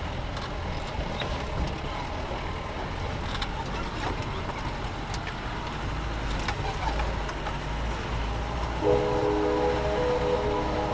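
Off-road jeep running along a rough dirt track, heard from on board: a steady engine and road rumble with scattered rattles and knocks over the bumps. About nine seconds in, background music with held notes comes in over it.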